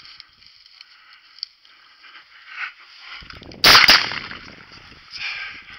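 Browning A5 semi-automatic shotgun fired once, a single loud, sharp blast a little over halfway through. Dry brush rustles softly before and after as the shooter walks through it.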